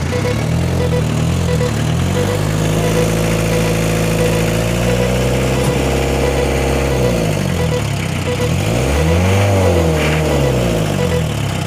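A motor-vehicle engine revving, its pitch held steady for a few seconds, then dropping, then rising and falling twice near the end.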